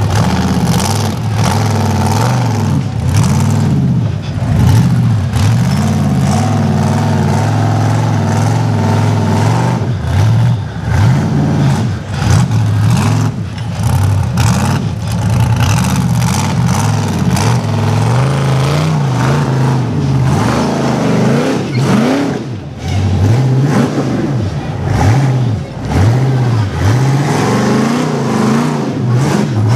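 Off-road competition truck engine revving hard, its pitch rising and falling over and over as the driver works the throttle.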